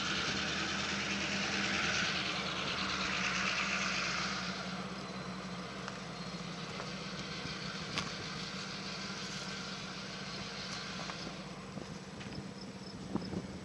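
Steady low hum of an idling engine, with a hiss over it that drops away about four and a half seconds in.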